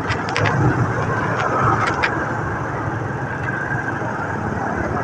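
Honda motorcycle on the move in traffic: steady engine and road noise with wind on the microphone, and a few short clicks in the first two seconds.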